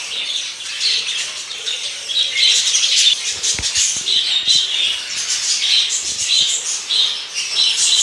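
A flock of budgerigars chattering and squawking throughout, many short calls overlapping. A few dull knocks sound about three and a half seconds in and again near six seconds.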